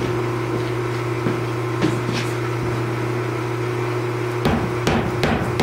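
Power hammer's motor humming steadily while the ram sits idle, then, about 4.5 s in, the ram begins striking a hot Damascus billet, about three blows a second, to forge-weld the stacked bars into one.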